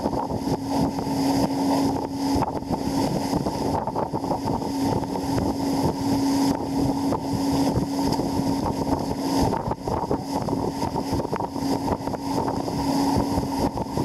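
Motorboat engine running with a steady hum while towing a banana boat, under the rush of wind buffeting the microphone and water spray; the hum dips briefly about ten seconds in.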